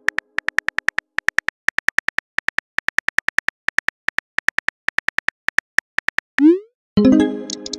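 Simulated phone keyboard clicks, about six a second, as a text message is typed letter by letter. A quick rising whoosh follows as the message is sent, then a short musical chime that fades out near the end.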